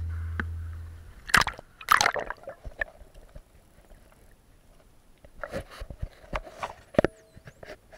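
Seawater sloshing and splashing around a waterproof action camera as it dips into the shallows, with muffled underwater gurgles and sharp splashes, the loudest about a second and a half and two seconds in and again near the end.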